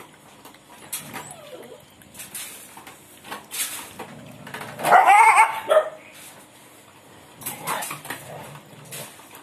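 A dog lapping milk from a steel pot, with dog cries: one loud high whining cry about five seconds in, and fainter ones about a second in and near the end.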